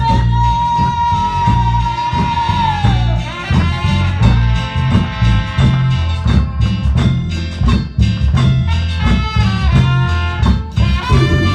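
Live church band playing an upbeat worship song: steady drum beat and bass under keyboard and guitar, with a lead melody that holds one long high note and slides down about three seconds in, then moves on in shorter notes.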